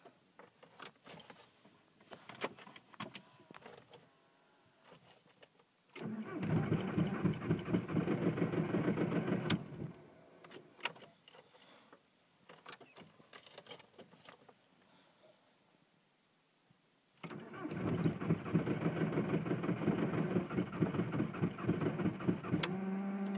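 2004 Volkswagen Jetta TDI's 1.9 L PD diesel being cranked by the starter in a hard freeze, in two attempts of about four and six seconds, without catching. Faint clicks fall between the attempts.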